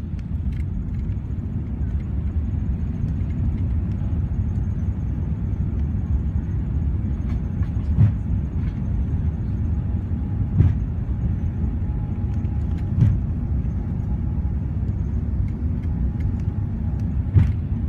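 Inside the cabin of an Airbus A380 climbing after takeoff: a steady low rumble, broken by four loud thuds a few seconds apart from the landing gear, which fails to retract.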